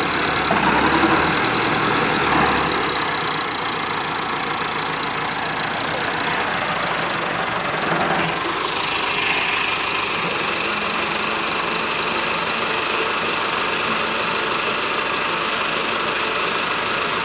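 Massey Ferguson 385 tractor's four-cylinder diesel engine running steadily while the tractor is stuck in mud, a rear wheel spinning in the muck; the engine's sound changes about halfway through.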